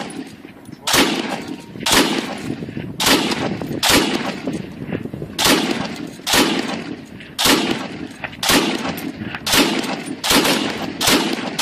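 Gunshots fired one at a time, about one a second, roughly eleven in all, each sharp crack followed by an echoing tail.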